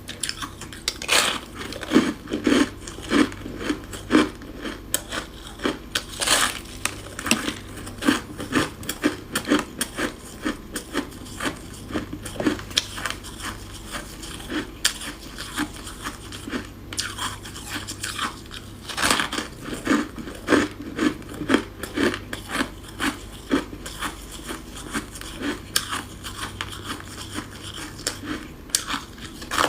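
Close-miked biting and chewing of chunks of freezer frost: a steady run of sharp, crisp crunches, several a second, with brief pauses between bites.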